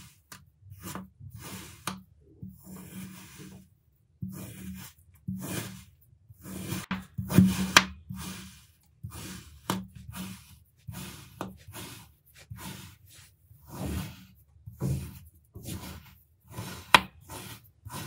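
Knife blade slicing down through a block of kinetic sand, one thin slice after another at about one cut a second. Each cut is a short crunch, and a few end in a sharp tap.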